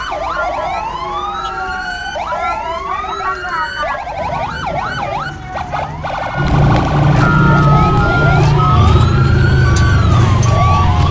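Several electronic siren wails sweeping up and down and overlapping, with short beeping tones among them. About six and a half seconds in, music with a heavy bass beat comes in under the sirens.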